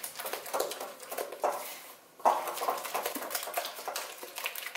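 Silicone spatula beating eggs and sugar by hand in a glass mixing bowl: quick repeated stirring strokes against the bowl, with a brief pause about two seconds in.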